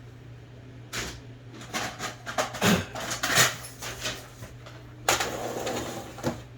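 Irregular clicks and clinks of small metal typewriter parts and tools being handled during disassembly, with a longer scraping, rattling stretch about five seconds in.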